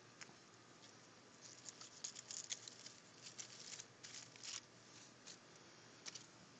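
Faint, scattered crinkling and clicking of plastic wrap and foil being handled, in short clusters through the middle, as an air-layer wrap on a branch is refastened with plastic straps.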